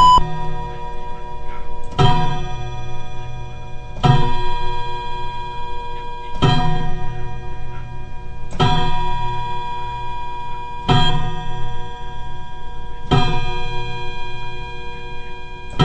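A clock chime striking the hour: a bell-like tone struck slowly about every two seconds, eight strikes counting eight o'clock, each left ringing into the next.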